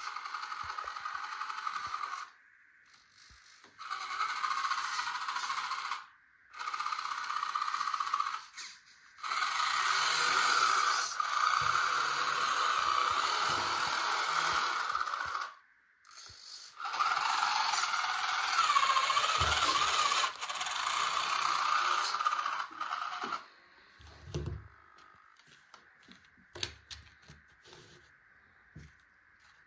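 Electric drive motor and gearbox of a home-built radio-controlled model tractor whining in stop-start runs as it is driven and turned. There are five runs of a few seconds each, then only a few light clicks near the end.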